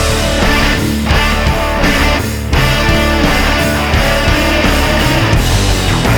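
Heavy rock or metal music with distorted electric guitars and a steady beat.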